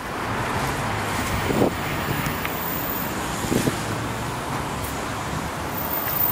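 Steady road-traffic noise, a continuous hum of passing cars, with two brief sounds about one and a half and three and a half seconds in.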